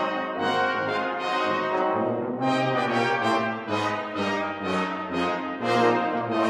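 Brass dectet of trumpets, horns, trombones and tuba playing: flowing held notes at first, then from about two and a half seconds in a string of short accented notes.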